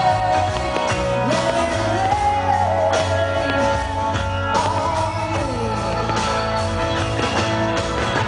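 Background pop song: a singing voice over a steady band accompaniment.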